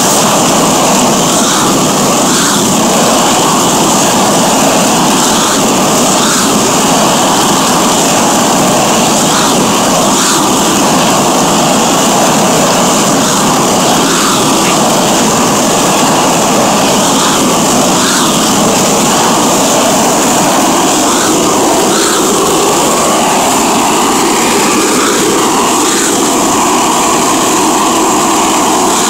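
Propane burners of a rotating mesh-drum chile roaster running with a steady loud roar, with faint light knocks about once a second as the drum turns.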